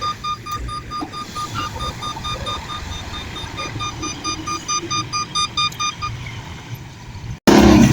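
Rapid electronic beeping, about five short beeps a second at one steady pitch, over a low rumble. The beeping stops about six seconds in, and a much louder passage, likely music, cuts in near the end.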